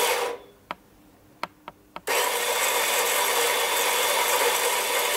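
Quick Mill Apollo coffee grinder's motor grinding beans into a portafilter in manual mode. It stops less than half a second in, a few light clicks follow, and grinding starts again about two seconds in and runs on steadily.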